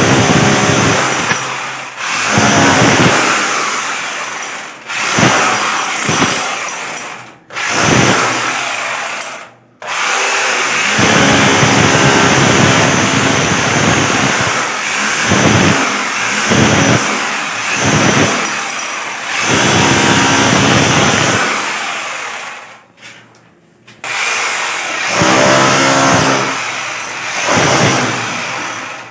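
Electric rotary hammer with a chisel bit cutting a groove into a brick wall. It runs in long bursts and stops briefly several times.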